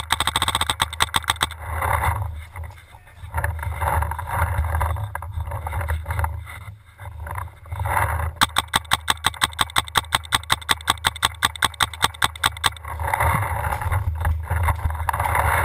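Paintball marker firing rapid, evenly spaced shots of about eight a second: a short string in the first second and a half, then a long string of about four seconds from just past the middle. A steady low rumble runs underneath.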